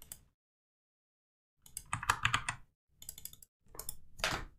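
Computer keyboard being typed on in three short runs of key clicks, starting about one and a half seconds in after a silent pause.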